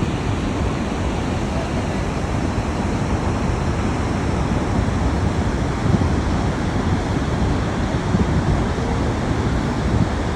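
Niagara Falls' water roaring in a steady, unbroken rush, with wind rumbling on the microphone.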